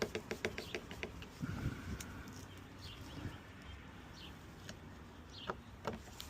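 Light plastic clicks and taps as a car's license plate light and its bulb are handled and pushed back into place, with a few faint bird chirps.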